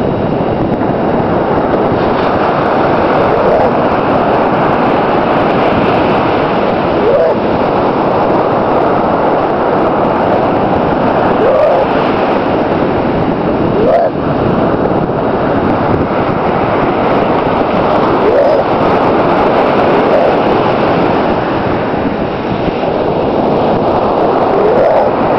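Steady, loud rush of beach wind and surf noise with no break. A few short rising voice-like squeaks sound every few seconds over it.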